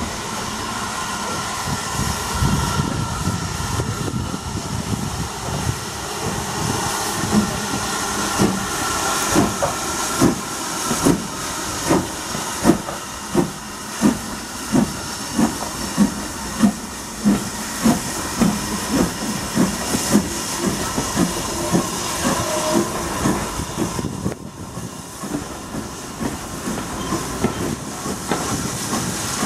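British Railways Standard 4 Class 2-6-4 tank steam locomotive working a train of coaches past, with a steady hiss of steam. Sharp, even exhaust chuffs, about five every four seconds, stand out through the middle, then ease off as the engine moves away and the coaches roll by.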